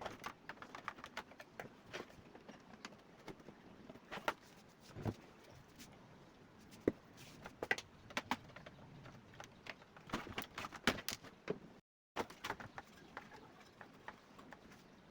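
Irregular light clicks and knocks, several a second in clusters, from small tools and parts being handled on a workbench.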